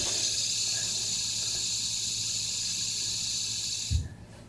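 LED fidget spinner spinning on its bearing: a steady high whir that cuts off with a short thump about four seconds in, as the spinner is caught by hand.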